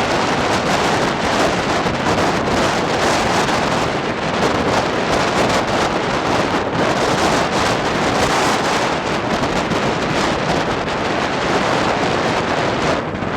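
Strong wind buffeting the microphone: a loud, steady rushing noise with rapid gusty flutter.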